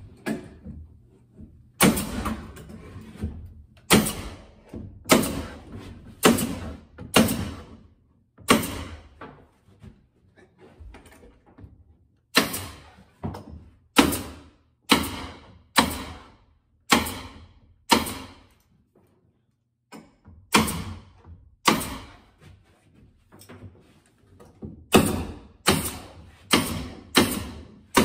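Pneumatic stapler firing staples through plywood ceiling panels into wooden rafters: about twenty sharp shots, mostly about a second apart, with a couple of short pauses and a quicker run of about two a second near the end.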